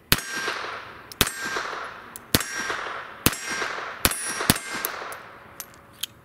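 Raven Arms MP-25 .25 ACP pocket pistol firing six shots, roughly a second apart with the last two quicker, each shot trailing off in a short echo. A faint metallic ring follows several of the shots, as the steel targets are hit.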